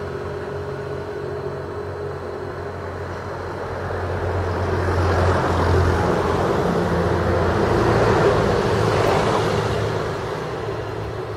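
A passing vehicle: a steady low hum at first, then a broad rushing noise that swells over several seconds and fades away toward the end.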